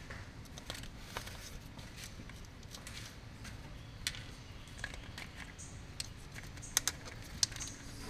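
Small metallic clicks and ticks of a wrench working the terminal nuts on an ignition coil and the wire ring terminals coming off the posts, sharpest near the end, over a low steady hum.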